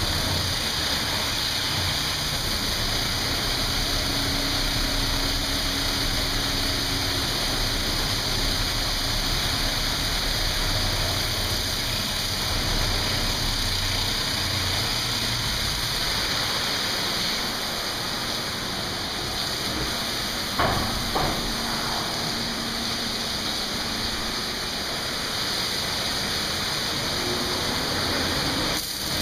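Automatic car wash running: a steady hiss and rush of water jets spraying onto a car, with the wash machinery running underneath. Two brief knocks about two-thirds of the way through.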